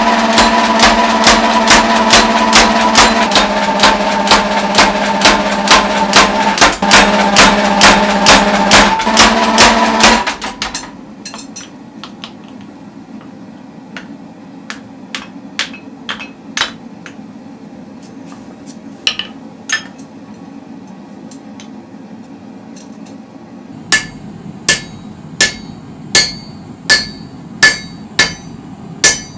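Hammer blows on steel at the anvil while forging an axe. For the first ten seconds a steady motor runs under about two blows a second, then stops abruptly. A few scattered blows follow, and near the end a regular run of ringing blows, about one and a half a second.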